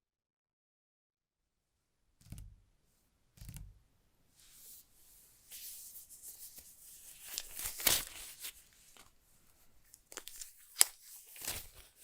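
Two soft thumps of handling, then packaging being torn and crinkled in irregular rips, loudest about halfway through and with a sharp snap near the end.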